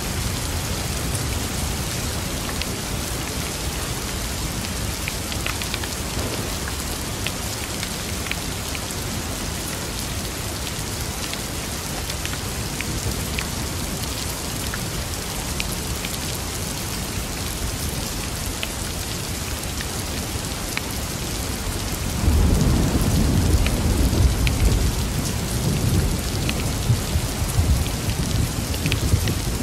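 Steady rain with scattered sharp drop ticks. About three-quarters of the way through, a low rumble of thunder comes in and goes on, louder than the rain.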